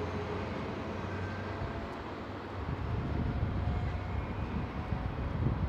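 Class 43 HST moving off on the curve, its diesel power car running with a steady low rumble that grows rougher and a little louder about halfway through.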